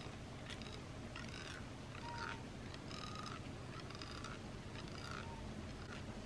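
Cotton thread drawn back and forth across facial skin in eyebrow-style threading, plucking fine hairs in short repeated strokes, roughly one every two-thirds of a second.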